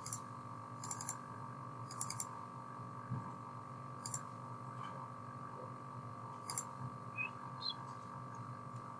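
Computer mouse buttons clicking sharply, singly and in quick pairs or triplets a second or two apart, over a steady low hum.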